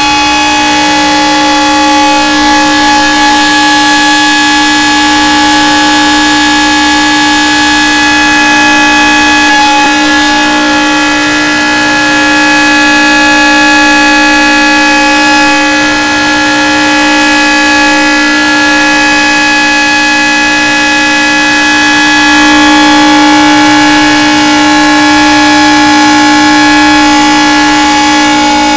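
Tornado warning siren sounding loudly, holding one steady pitch with strong overtones, swelling slightly in loudness now and then.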